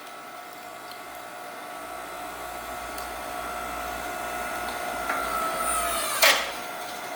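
8-ton electric hydraulic log splitter running under load, its motor and pump giving a steady whine that slowly grows louder as the ram pushes into a log. Just before six seconds in the pitch sags as the load peaks, followed by a sharp crack as the wood gives way.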